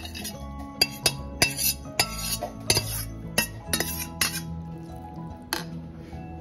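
A metal utensil clinks and scrapes against a cooking pan as soupy food is emptied into a bowl. The sharp clinks come in a quick, uneven run through the first four seconds or so, with one more a little after five seconds, over background music.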